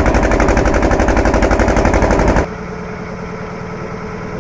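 Boat engine running, a loud rapid chugging of about ten beats a second. About two and a half seconds in it drops to a quieter, steady engine drone.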